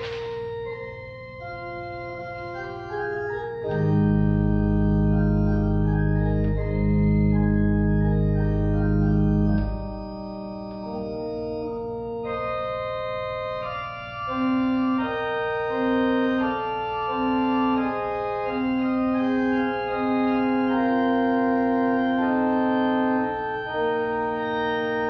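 Church organ playing a slow prelude of held chords. About four seconds in, deep pedal bass notes come in and sustain for about six seconds before dropping away, and later a melody line moves over the chords.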